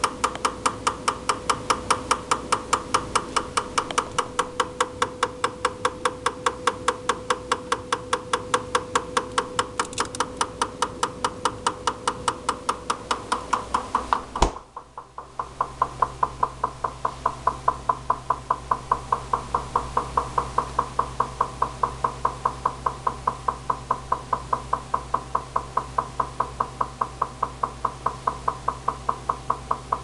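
GE refrigerator knocking from inside the upper back of the freezer: a fast, even run of sharp knocks, several a second, that keeps on without a break. About halfway through there is one louder click, after which a steady low hum sits under the knocking. The service technician calls this a normal operating sound for this model; the owner disputes it.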